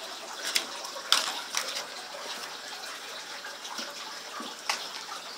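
Water running steadily through tubing during an aquarium water change. A few sharp clicks and taps come through it, the loudest about a second in.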